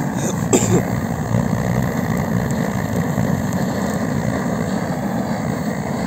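Blowtorch running with a steady, even noise of burning fuel while it singes the down off a plucked duck. There is a brief click about half a second in.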